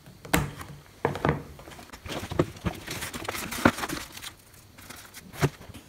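A flat screwdriver prying staples out of the edge of an old MDF Toyota Land Cruiser 60 Series door card, and the old glued-on covering being peeled off it: an irregular run of sharp clicks and snaps with crackling and tearing in between.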